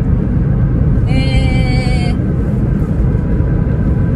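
Honda S660's mid-mounted 658 cc turbocharged three-cylinder engine and road noise heard from inside the small cabin while cruising, a steady low rumble. About a second in, a steady high-pitched tone with several overtones sounds for about a second.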